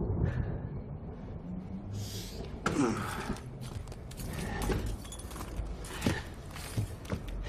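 A man breathing heavily and raggedly in short hoarse gasps, with a strained vocal groan about three seconds in: the laboured breathing of someone injured and spent after a fight.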